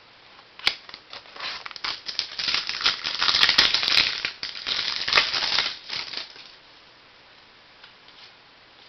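Crinkly rustling of trading cards being handled, starting with a sharp click and lasting about five seconds, loudest in the middle.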